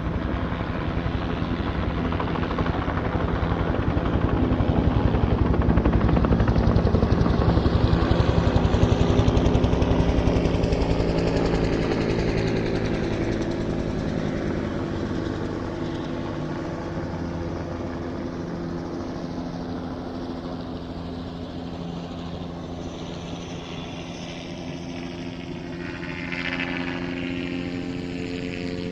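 Helicopter with its rotor beating fast and its engine humming. It grows louder over the first several seconds, then fades with a falling pitch as it passes, and swells a little again near the end.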